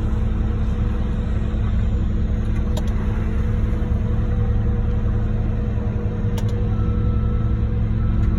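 Concrete mixer truck's diesel engine idling steadily, a continuous low rumble, with a few faint clicks.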